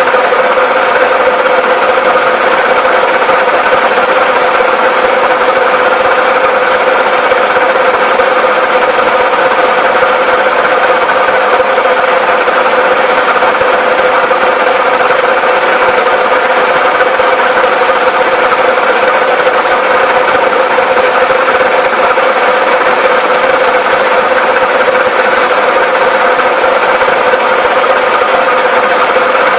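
1V61 screw-cutting lathe running steadily while a caliper guide pin is turned down to 10 mm, a loud even machine hum with one strong steady tone throughout.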